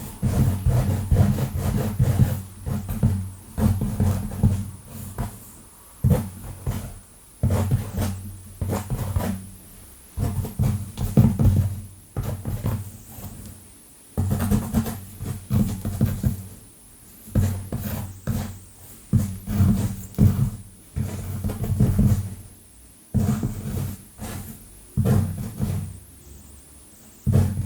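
Long nails scratching fast and hard through hair and across a scalp, close to the microphone, in bursts of rapid strokes every second or two, most of the sound deep and rumbling.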